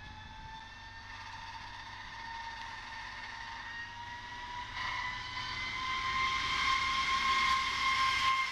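ČD class 854 diesel railcar moving off with its train, its engine and drive whine rising slowly in pitch and growing louder as it draws past.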